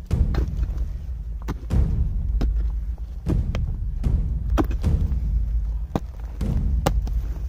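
Pickaxe striking a packed earth and stone trench wall, a dull thud every second or two with smaller knocks between, and loosened soil falling away. A steady low rumble runs underneath.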